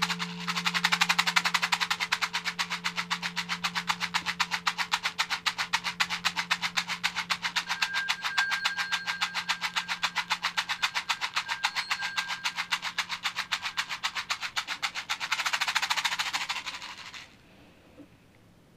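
Horse rattle made from horse parts shaken in a fast, even rhythm, then stopping abruptly near the end. Underneath, a singing bowl's low ringing tone slowly fades out.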